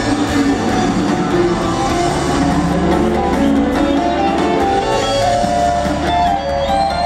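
Live band playing loud amplified music: electric guitars over drums, with no break.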